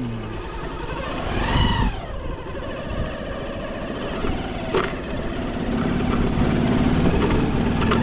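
Small motorcycle engine running at low speed over a rough dirt track, getting a little louder in the last couple of seconds. There is a single sharp knock about five seconds in.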